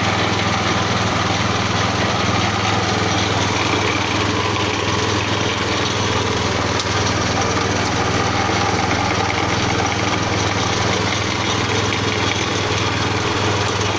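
Fish-feed pellet press running steadily, its motor giving a constant, even drone as the organic-waste mix is pressed into pellets.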